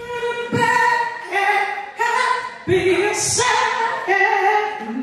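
A woman singing unaccompanied into a microphone, a line of held notes that step from one pitch to the next.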